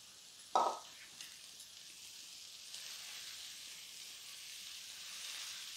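Fresh fenugreek leaves sizzling in hot oil in a heavy-bottomed kadhai as they are stirred with a wooden spatula. A single knock about half a second in; the sizzle grows a little stronger from about three seconds in.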